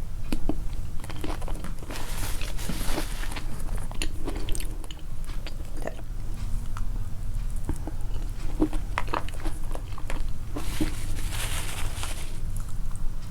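A person chewing food close to the microphone, with crisp crunches, wet mouth clicks and smacks, boosted to be loud. A longer hissy, wet stretch comes about two seconds in and again near the end.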